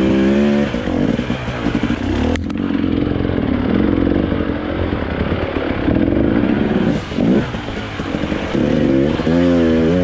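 KTM 300 EXC two-stroke enduro motorcycle engine running under load while ridden off-road, its revs rising and falling, most sharply near the start and again near the end. A single sharp knock comes about two and a half seconds in.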